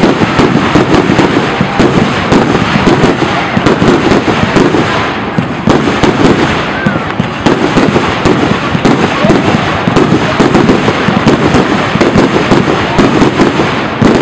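Aerial fireworks going off in a rapid, near-continuous barrage of booming bursts and crackles, loud enough to approach full scale on the camera's internal microphone.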